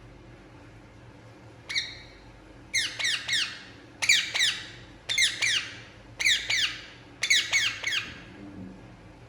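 Indian ringneck parakeet squawking in short bursts of two to four sharp, high notes, each note falling in pitch. The calls start about two seconds in and stop shortly before the end.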